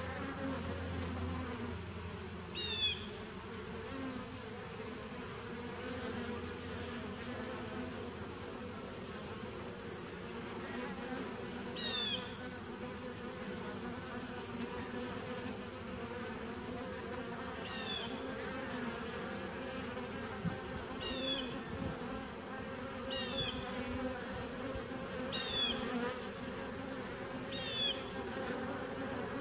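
Honeybees buzzing steadily as they fly in and out at the entrance of a nucleus hive. A short, high, falling chirp sounds every few seconds over the hum.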